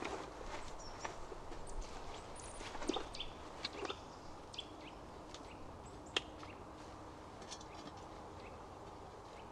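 Rustling of a rucksack and its straps being adjusted, with a few sharp clicks from the strap fittings, the loudest about six seconds in. Faint bird chirps sound in the background.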